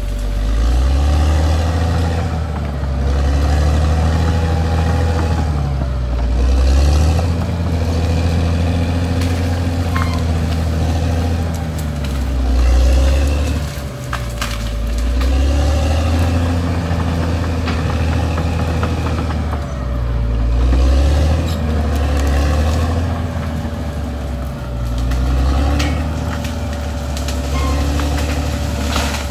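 Caterpillar D6R XL bulldozer's diesel engine running under load, its pitch and level rising and falling every few seconds as it works, with a steady high whine throughout and a few light clanks.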